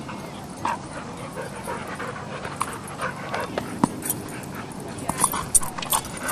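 Several dogs playing and chasing one another, making short, scattered vocal sounds that come more often near the end, with people talking in the background.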